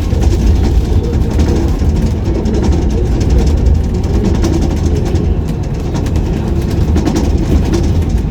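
Tour bus engine running with city street traffic around it: a loud, steady low rumble.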